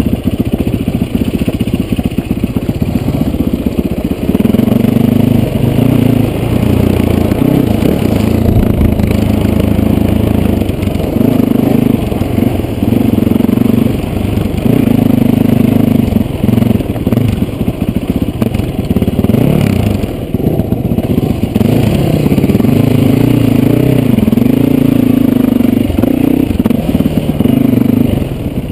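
Yamaha WR450F's single-cylinder four-stroke engine on the move, its pitch rising and falling as the throttle is opened and shut. Loose gravel and broken road surface crunch and clatter under the tyres, heard from a helmet-mounted camera.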